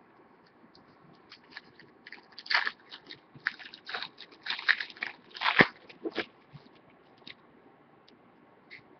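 A hockey card pack wrapper being torn open and crinkled by hand: a run of irregular crackles and rustles, thickest through the middle, with one sharper crack about five and a half seconds in.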